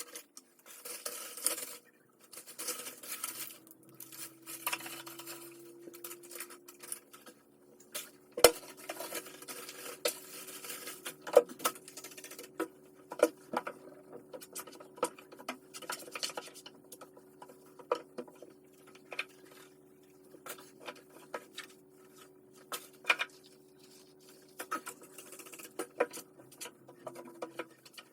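Dishes and utensils clinking and tapping in a kitchen, over a steady low hum of a running appliance that starts a few seconds in and stops near the end.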